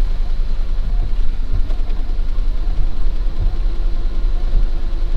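Motor vehicle engine running steadily with a deep, continuous rumble.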